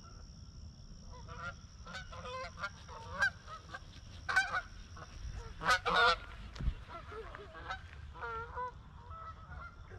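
A flock of Canada geese honking as they fly over, many short honks overlapping, loudest a little past halfway through.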